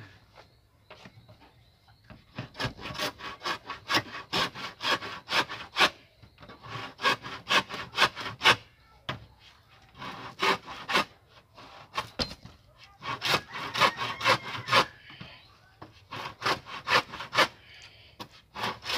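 Hand saw cutting through a young green bamboo pole at a node, in quick back-and-forth strokes about four a second. The strokes come in several runs broken by short pauses.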